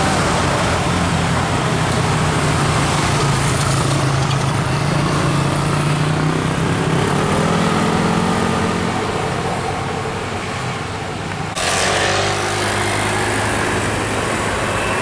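Heavy road vehicle's engine working up an uphill bend, its note climbing as it pulls, over steady road and tyre noise. About twelve seconds in the sound jumps abruptly to a louder, different engine.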